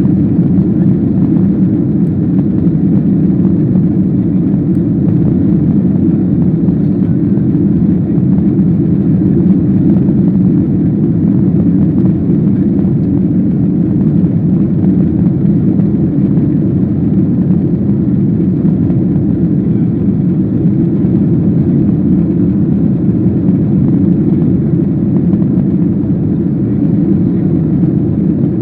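Steady, loud cabin noise of a Boeing 737-800 in the climb after take-off: a low, even rumble of its jet engines and airflow heard from inside the cabin.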